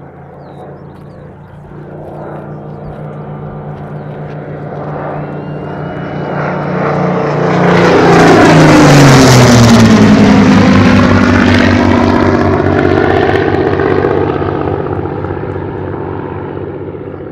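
Two Supermarine Spitfires' Rolls-Royce V12 piston engines in a low flypast: the engine drone builds steadily, is loudest about halfway through, then drops in pitch as the pair pass and fades away.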